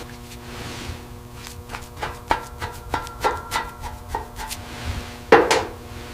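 A string of light knocks and taps, about three a second, then two louder strikes near the end, over sustained background music.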